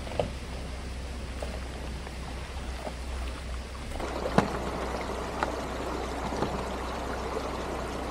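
Shallow, low-running stream trickling steadily over rocks, with a low steady hum underneath and a few light clicks in the second half.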